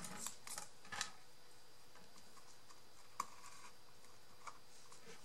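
Faint handling noises from small craft pieces being set down and adjusted on a work surface: a few light clicks and rustles in the first second, then one sharper click about three seconds in and a softer one near the end.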